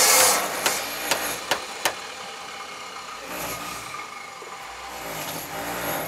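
A brief scraping rush of wood at the start, then four sharp knocks in the first two seconds, like a bricklayer's trowel or hammer striking brick. A low engine drone comes in during the second half.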